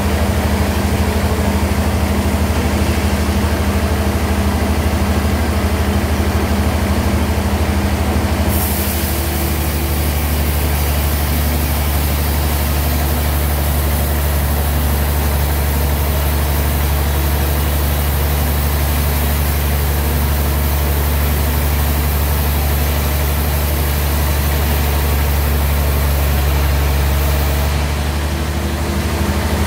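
A sawmill bandsaw runs with a steady low hum. About eight seconds in, a high hiss joins and the hum drops in pitch as the blade cuts through the log under load. Near the end the hiss stops and the hum rises again as the cut finishes.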